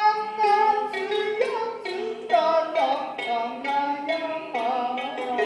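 Kabuki narrative chanting with shamisen accompaniment: a held, wavering sung line over sharp shamisen plucks that strike about twice a second.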